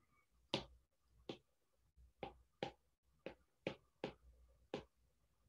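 Stylus tip clicking and tapping on a tablet's glass screen while handwriting: about nine faint, sharp clicks at uneven spacing.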